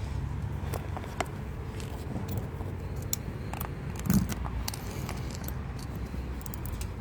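Small clicks and rattles of a key and latch working the lock of a motorcycle saddlebag, with a louder knock about four seconds in, over a steady low hum.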